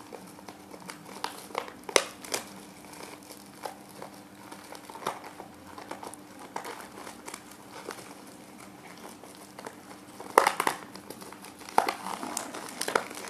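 Crinkly packaging being pulled open by hand, already cut with scissors, in scattered rustles and crackles that are louder about two seconds in and again near the end.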